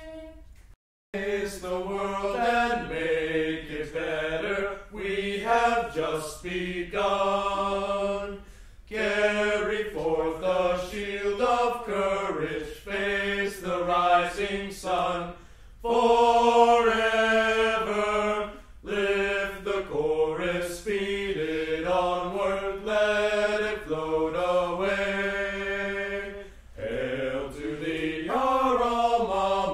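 Background music of voices singing, starting about a second in after a brief silence.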